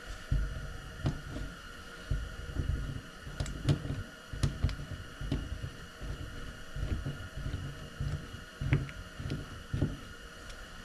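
Irregular clicks and low knocks of a hand-pushed chainsaw bar greaser being worked against the bar to force grease in.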